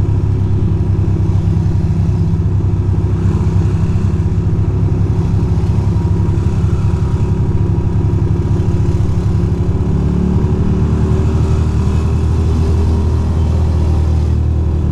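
2006 Ducati Monster 620's air-cooled L-twin engine running under way in slow traffic, heard from the rider's seat. It runs at a steady pitch, then rises gently as the bike picks up speed in the second half.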